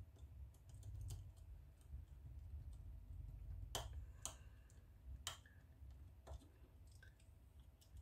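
Faint scattered clicks and taps of fingers handling thin wires and a small receiver circuit board in its plastic case, with four sharper clicks in the middle.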